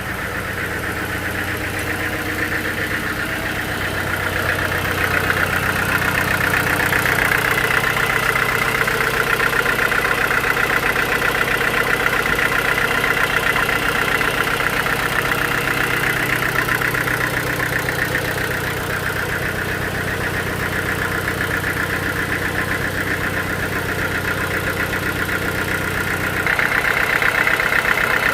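Sawmill machinery running: a steady engine hum under a high whine that grows louder about five seconds in, eases off past the middle, and rises again near the end as the low hum drops away.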